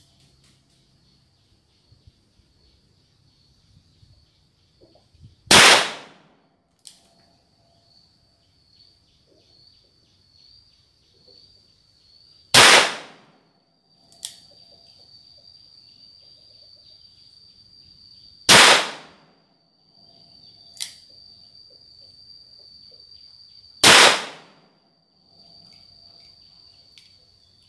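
Four gunshots from a Taurus M83 .38 Special revolver, fired slowly one at a time about six seconds apart, each a sharp crack with a short ringing tail. A much fainter sharp crack comes about 21 seconds in.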